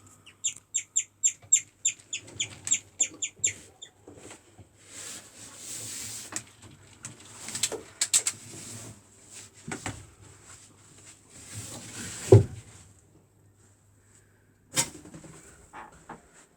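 Guinea pig chirping: a fast, even run of short, high, bird-like notes, about four a second, that stops about four seconds in. The uploader understands the call as a warning to others that danger is present. Rustling and scattered knocks follow, with one sharp knock about twelve seconds in.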